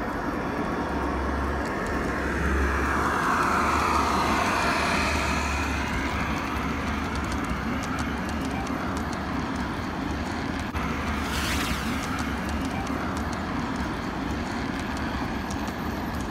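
G scale model train rolling past: a steady rolling rumble of wheels on track, loudest about three to five seconds in as the diesel locomotive goes by, then the loaded hopper cars trundling past.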